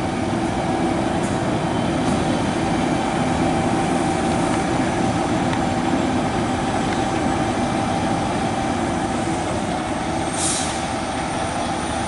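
Fire engine's diesel engine idling steadily, with a short hiss of air about ten seconds in.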